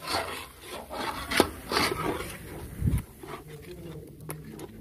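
A metal spatula scraping and stirring through a thick, bubbling mixture in a large iron karahi, in irregular rasping strokes.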